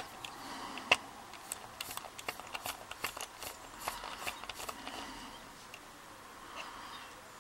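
Small screwdriver turning out a retaining screw on the back of a brass lock cylinder: scattered faint metallic clicks and scrapes, the sharpest about a second in.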